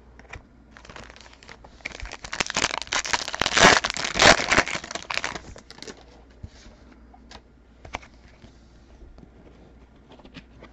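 A trading card pack wrapper being torn open and crinkled: a dense crackling that swells about two seconds in and dies away before six seconds. A few faint clicks follow.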